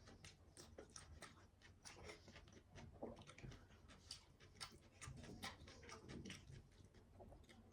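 A person eating close to the microphone: soft chewing with irregular wet mouth clicks and smacks, several a second.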